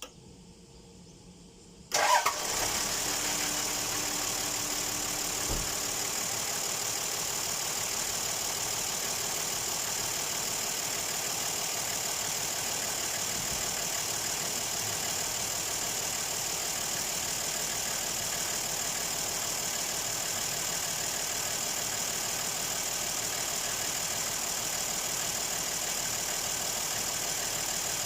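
A Toyota Land Cruiser 60's engine starts about two seconds in and then runs steadily at idle, with a steady high hiss over it.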